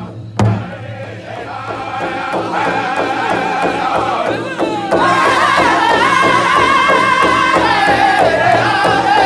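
Powwow drum group: several men beating one large shared hand drum with sticks in unison while singing together in a high chorus. A heavy single stroke near the start, then a steady even beat; about five seconds in the singing jumps louder and higher.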